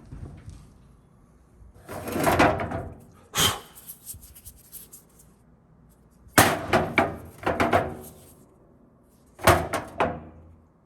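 A series of hard knocks and clattering in a small room, in several separate clusters with short pauses between them, like hard objects being handled and set down.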